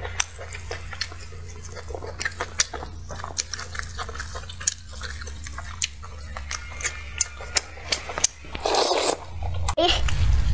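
Close-miked chewing of braised pork leg, with many short wet, sticky mouth clicks and smacks. A louder stretch of noisy tearing and rustling comes about nine seconds in, over a steady low hum.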